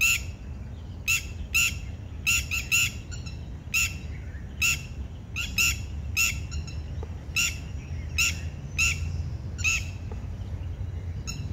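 A colony of lapwings calling: short, sharp, high calls repeated irregularly, roughly once or twice a second and sometimes in quick pairs, over a steady low rumble.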